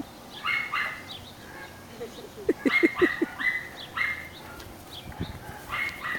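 Birds chirping in short repeated calls. About two and a half seconds in, a dog gives a quick run of short yips.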